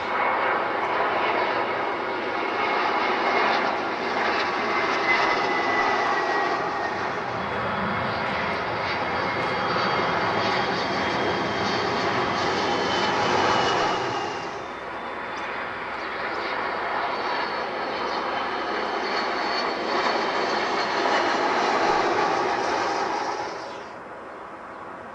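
Jet airliners on final approach passing low overhead one after another: a loud, steady jet rush with a thin high whine that slides down in pitch as each one goes by. The sound dips about 14 seconds in as one pass gives way to the next, and falls away sharply near the end.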